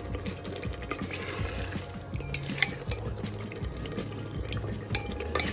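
A spoon stirring and lifting a thick, wet tomato and vegetable mixture in a deep enamelled pan, with scattered soft scrapes and clicks of the spoon against the pan over a low steady hum.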